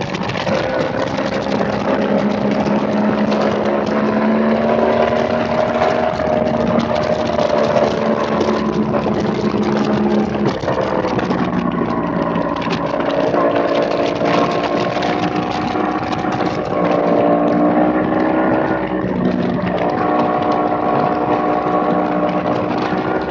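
Yamaha R1 sportbike's inline-four engine pulling hard at speed, with wind noise rushing over the onboard mic. The engine note holds steady for about ten seconds, drops suddenly, then climbs again in steps before levelling off.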